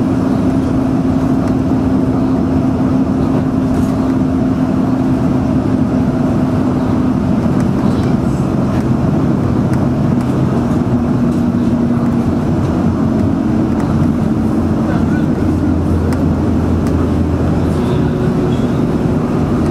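Airport bus heard from inside its cabin while driving: a steady drone of engine and tyre noise, with an engine hum whose pitch shifts a few times.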